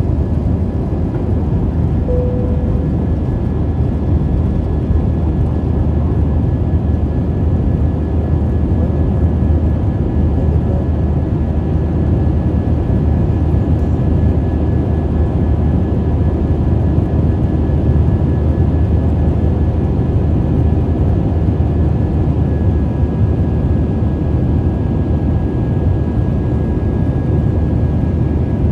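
Airbus A320 heard from inside the cabin over the wing during the climb after take-off: the steady deep rumble of the engines and airflow at climb thrust, with a faint steady high whine above it.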